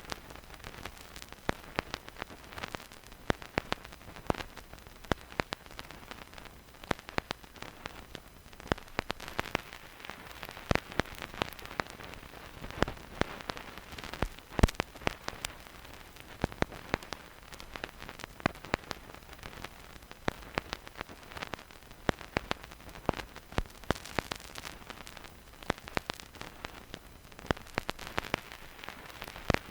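Vinyl record surface noise with no music: irregular crackles and pops from the stylus in the groove, several a second, over a faint steady hiss, with now and then a louder pop.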